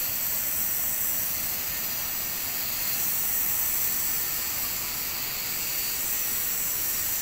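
A steady, even hiss with no distinct events, strongest in the upper range.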